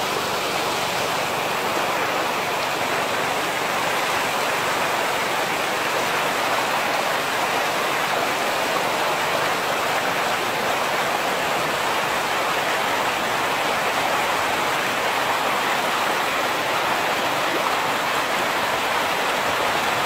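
Steady rush of a fast, swollen river pouring over rocks and through rapids.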